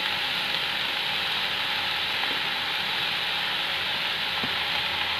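Chopped vegetables sizzling in a kadhai with a little oil over a high gas flame, a steady even hiss.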